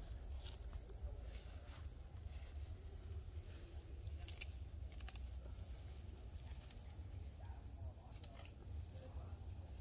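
Insects chirping in an even rhythm, a short high chirp about once a second, over a low steady rumble. Scattered rustles and clicks come from grass being gathered by hand.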